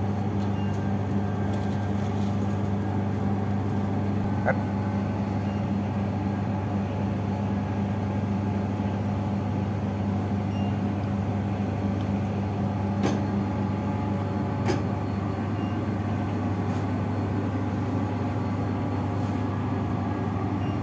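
Steady, even machine hum of running kitchen equipment, with a few faint clicks about four and a half, thirteen and fifteen seconds in.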